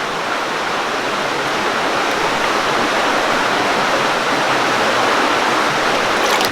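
Creek water rushing steadily past close by, a loud, even rush of flowing water.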